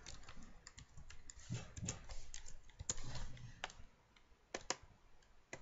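Typing on a computer keyboard: a run of irregular, quick keystroke clicks.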